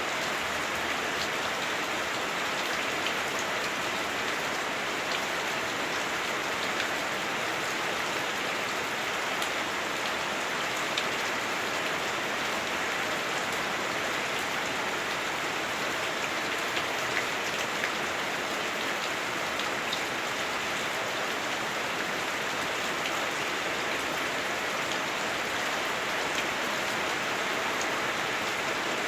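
Heavy rain pounding on a house roof, heard from inside as a steady, dense hiss with scattered drop ticks.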